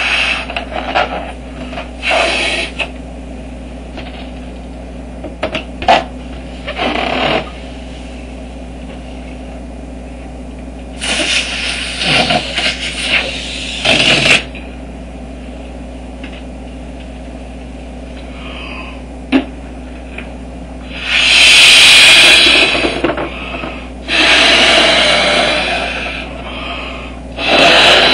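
Long rubber balloons being blown up by mouth: long, loud puffs of breath rushing into the balloon, separated by pauses, with a few sharp clicks and a steady low hum underneath.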